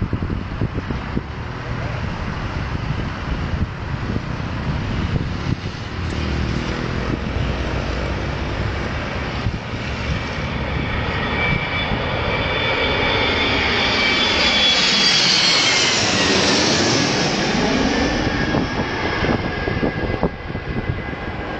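Low-flying airplane passing overhead: it grows steadily louder, is loudest about fifteen seconds in, then fades as it moves away. Its high whine drops in pitch as it goes past.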